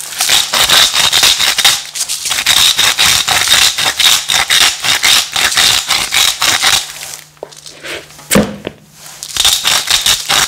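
Himalayan rock salt being ground onto a raw turkey leg, a fast run of crunching clicks from the salt grinder. It pauses for a couple of seconds past the middle, with one sharp knock, then grinds again near the end.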